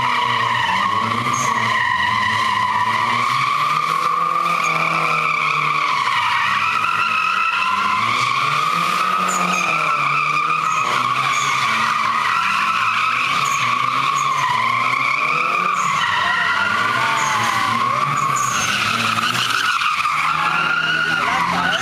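Tyres squealing continuously, wavering in pitch, as a Mazda RX-7 and a Nissan Silvia S14 drift in tandem. Their engines rev up and down beneath the squeal.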